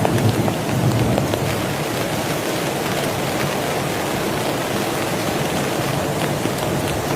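Heavy rain falling steadily, a dense even hiss with scattered drops tapping through it.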